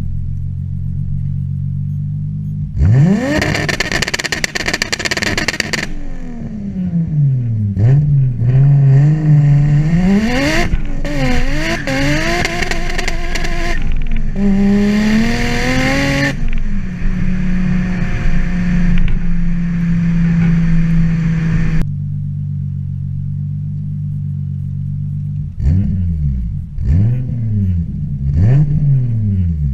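Toyota 2JZ-GTE straight-six with a single Garrett GT3582R turbo, in a BMW E36 M3, revved in the stationary car. It idles, is revved hard about three seconds in and held high for about three seconds, is revved three more times, and is held at a steady raised speed for about five seconds. It then drops back to idle and is blipped quickly about four times near the end.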